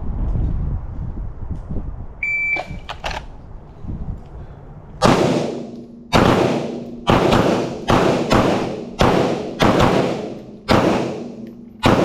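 A short shot-timer beep about two seconds in, then a string of about ten 9mm pistol shots from two shooters firing an FMK G3 and a Staccato P side by side. The shots come irregularly, roughly half a second to a second apart.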